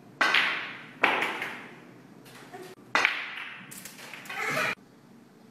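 Snooker balls clacking as the cue ball is struck and hits other balls: a few sharp knocks, each ringing on with an echo from the hard, bare walls.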